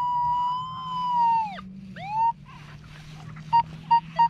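Electronic metal-detecting pinpointer sounding a continuous alert tone that wavers in pitch, stops, and then pulses in short, even beeps about twice a second as it is moved around a target.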